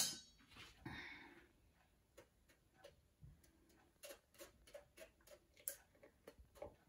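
Faint, irregular clicks and scrapes of a metal spoon against a fine stainless mesh sieve as thick green juice is pressed through it.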